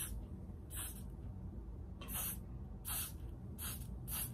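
Got2b Glued aerosol hairspray can giving a series of short hissing sprays, about five or six quick bursts at uneven gaps of half a second to a second and a half.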